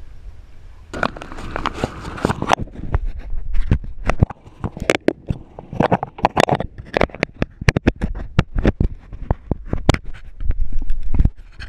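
Camera being handled and jostled: a rapid, irregular run of clicks, knocks and scrapes with a low rumble, plus a denser rushing patch about a second in.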